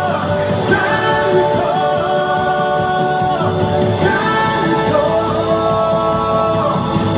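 Christian worship song playing, a singer holding long, slightly wavering notes over instrumental backing.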